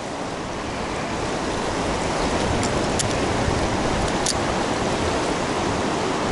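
River water rushing steadily, with a few faint short clicks around the middle.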